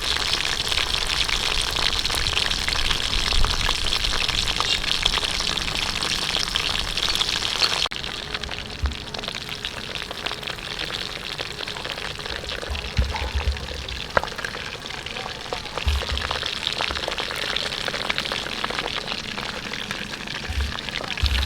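Chicken drumsticks frying in hot oil: a steady, dense sizzle and crackle. It breaks off abruptly about eight seconds in and carries on slightly quieter.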